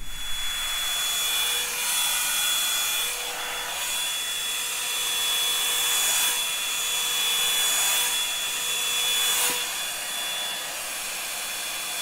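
Revlon One Step hot-air dryer brush running: a steady rush of blown air with a thin motor whine, swelling and easing every couple of seconds as the brush is worked through damp hair.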